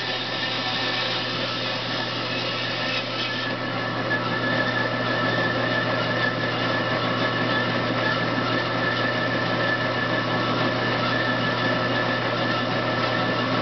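INCA bandsaw running steadily with a hum and whine, its blade cutting through a turned wooden blank with a rough hiss that stops about three and a half seconds in, after which the saw runs on.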